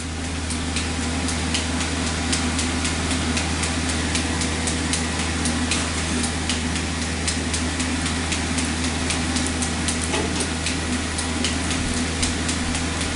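Mechanical power hammer striking a hot Damascus steel billet in a rapid, even run of blows, several a second, over a steady low machine hum. The billet is being drawn out for length.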